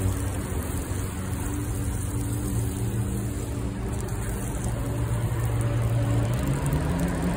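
Water pouring from a watering can onto the soil of potted plants, under a steady low engine hum that rises in pitch near the end.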